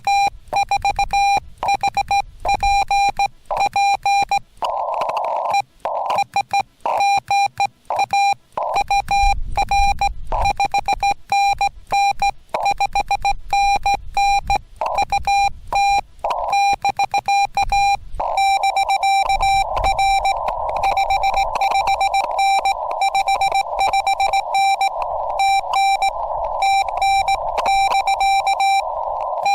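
Morse code (CW) from a Yaesu FT-891 ham transceiver: a single-pitch beep keyed on and off rapidly in dots and dashes. In stretches, most of all in the last third, a hiss of band noise comes through the receiver's narrow filter around the tone.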